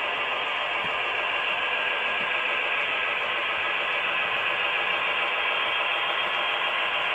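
HO-scale model train of two Norfolk and Western GP30 diesel locomotives running around the layout: a steady, even running noise that does not change in level.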